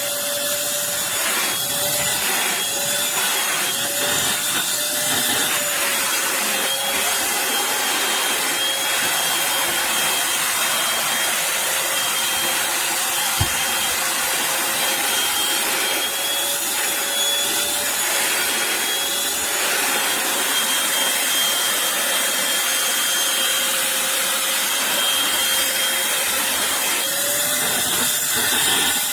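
Eureka Blaze cordless stick vacuum running: a steady rush of air under a high motor whine that wobbles slightly in pitch.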